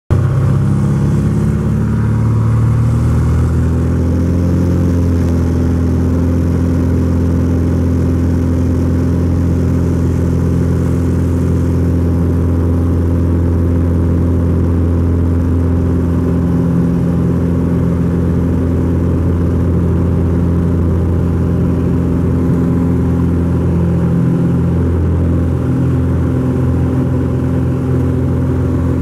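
Socata TB-20 Trinidad's six-cylinder Lycoming engine and propeller at full takeoff power, heard from inside the cabin. It is a steady drone that rises a little in pitch over the first few seconds as power comes up, then holds through the takeoff roll and climb.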